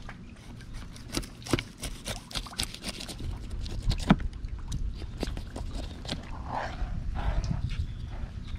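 Fillet knife cutting into a tripletail behind the head, crunching and scraping through its tough scales and skin in a run of sharp clicks, the loudest a little after four seconds in. A low rumble runs underneath, and a faint voice-like call comes in near the end.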